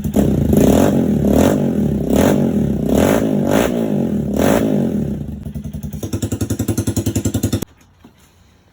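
Honda XR150's single-cylinder four-stroke engine breathing through a homemade test/race exhaust pipe, blipped in a string of about seven quick revs. It then settles to an idle and is shut off suddenly near the end.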